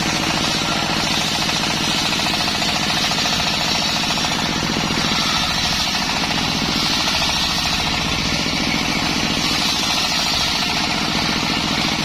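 Circular saw machine running steadily, with a fast, even knocking and a constant high hiss.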